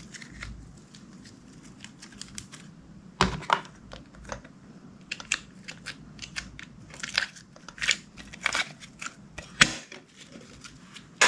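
Clear slime being pressed, stretched and folded by hand, making irregular sticky clicks and pops. A few louder pops come about three seconds in and near the end.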